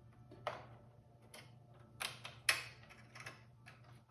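Hands working parts and cables inside a desktop computer case: a few scattered sharp clicks and taps of plastic and metal, the loudest about two and two and a half seconds in, over a low steady hum.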